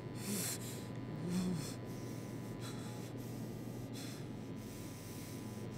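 A woman's short, sharp intakes of breath and sniffs, about one every second, with a brief catch in the voice near 1.5 s: the breathing of someone weeping quietly.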